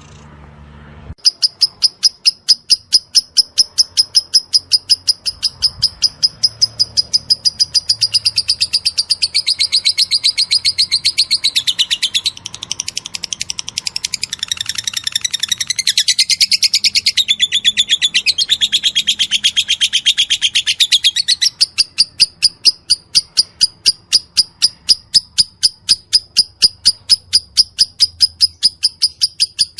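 Lovebird giving its rapid 'ngetik' call: a fast, even, near-nonstop train of sharp high ticking chirps, several a second, like typing. After a brief pause at the very start the ticks run on, and from about eight seconds in to about twenty-one they swell into a fuller, warbling chatter over the ticking.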